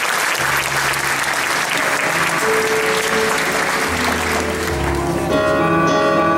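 Audience applauding while a live band begins a slow song intro: bass notes come in under the clapping, then held chords swell as the applause dies away toward the end.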